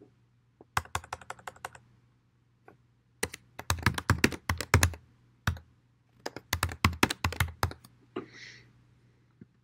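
Typing on a computer keyboard in three quick bursts of keystrokes with short pauses between them.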